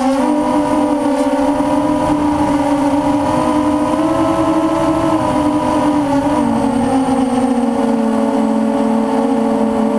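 Hexacopter's six electric motors and propellers humming steadily in flight, heard close up from the camera on the craft, the pitch wavering with throttle and dropping slightly about six seconds in.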